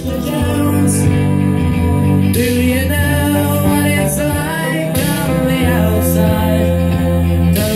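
Rock song with guitar and a steady bass line, played back over home hi-fi loudspeakers and heard in the room.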